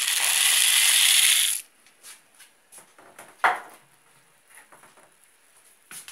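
Dry macaroni pouring out of a plastic container into a pot of boiling broth, a dense rattling rush that cuts off suddenly about a second and a half in. A few faint clicks follow, with one sharper click about halfway through.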